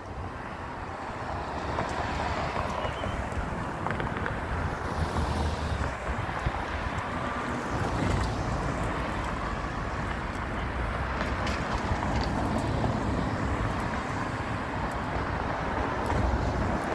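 Steady road traffic noise, with wind buffeting the microphone.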